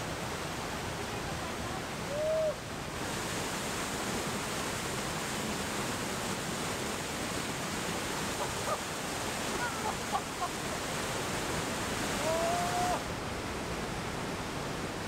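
Steady rushing of a mountain stream and small waterfall over rock, brighter from about three seconds in until near the end. Two short high cries break in, about two seconds in and near the end, with a few faint chirps in between.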